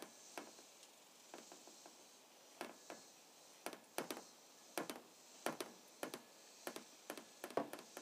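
Faint clicks and knocks of a hand-lever grease gun being worked, about a dozen short irregular strokes, as grease is pumped through its hose into a hydraulic cylinder.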